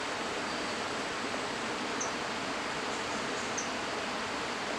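Steady, even hiss of forest ambience, with two brief high chirps about two seconds and three and a half seconds in.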